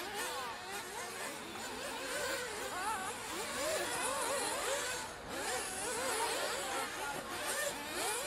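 Several nitro RC cars' small two-stroke glow engines racing around the track, their high whines overlapping and rising and falling as they rev and back off through corners and jumps.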